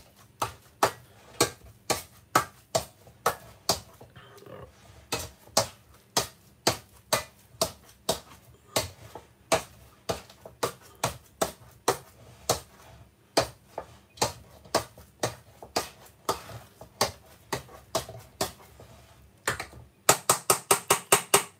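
Metal potato masher repeatedly striking the bottom of a stainless steel pot while mashing boiled potatoes, about two knocks a second. A quicker run of strikes comes near the end.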